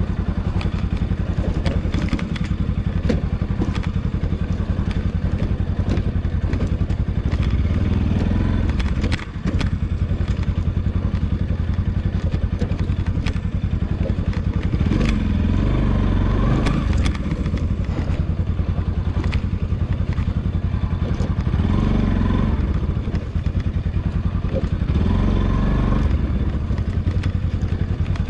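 Motorcycle engine running at low revs as the bike rides down a rough, rocky dirt trail, with frequent knocks and rattles as it jolts over stones. The engine note rises briefly a few times, around halfway and near the end.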